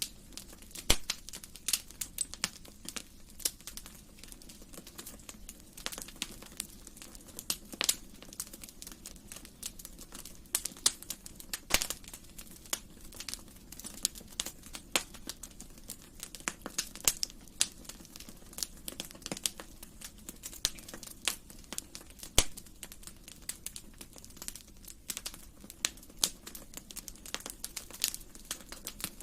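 Wood fire crackling in a fireplace: irregular sharp pops and snaps, several a second, over a low steady background.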